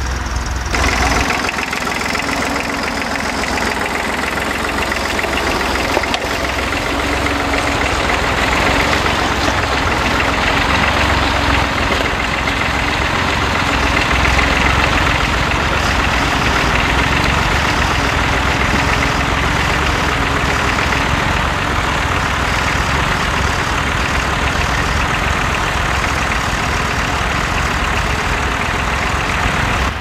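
Fordson Dexta tractor's engine running steadily under load as it pulls a mounted plough through the soil.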